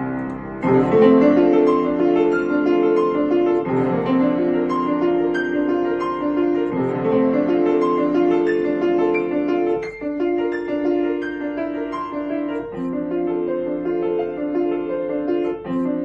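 Solo piano playing a classical-style piece: repeated chords in the middle register under a melody line, with a brief drop in level around ten seconds in as a new phrase begins.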